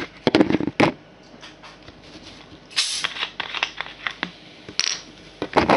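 Handling noise from a handheld camera and a plastic lemonade bottle on a kitchen counter: irregular clicks, knocks and rustles, with a short hiss about three seconds in and a louder rush of noise near the end.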